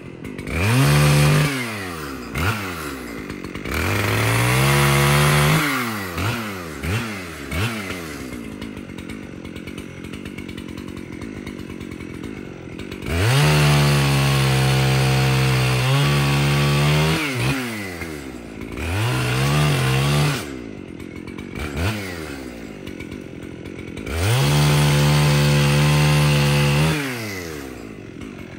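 Two-stroke chainsaw bucking brush: the engine revs to full throttle and holds for cuts of a second to a few seconds, about four times, the longest near the middle, dropping back to idle with short throttle blips between.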